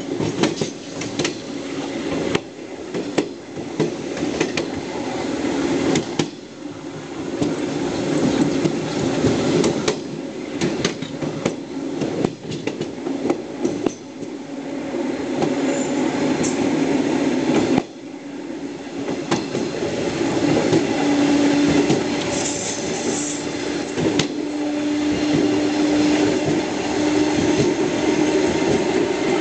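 Electric multiple-unit commuter train running, heard from its rear cab: wheels clicking and knocking irregularly over rail joints and pointwork over a steady rumble, with a low steady hum for a few seconds past the middle.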